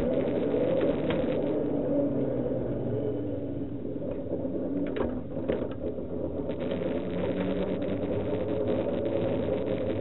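A 5-inch gauge Maxitrak Planet miniature locomotive running along track, with a steady mechanical hum from its drive and a few clicks as the wheels pass over the loose rail joints.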